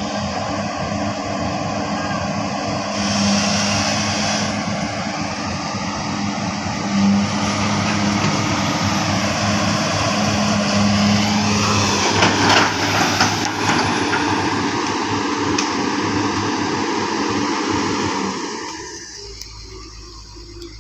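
Komatsu hydraulic excavator's diesel engine running hard, steady and loud, with a burst of sharp cracks a little past the middle as the machine works through brush and timber. The engine sound falls away about two seconds before the end.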